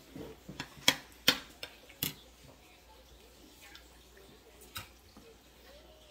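Bowls and spoons clinking and tapping at a dining table during a meal: three sharp clinks in the first two seconds, then a few faint ones.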